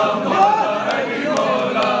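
A crowd of men chanting a devotional song together, many voices at once, with scattered hand claps.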